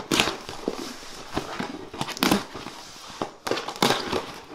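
A cardboard box and its packing being handled and opened by hand: irregular rustling and crinkling, with several sharper scrapes.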